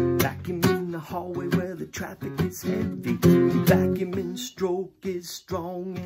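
Steel-string acoustic guitar strummed and picked in a blues rhythm, with chords struck in quick strokes between single notes.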